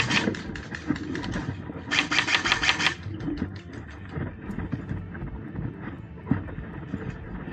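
Airsoft electric gun (AEG) firing rapid full-auto bursts: a short burst at the start and a louder one lasting about a second, two seconds in, followed by scattered single clicks.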